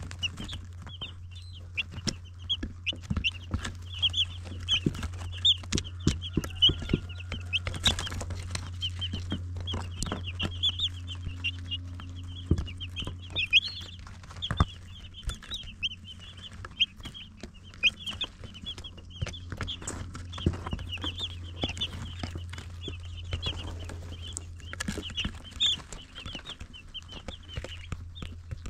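A brood of baby chicks peeping continuously, many short high-pitched peeps overlapping, with frequent small taps and a steady low hum underneath.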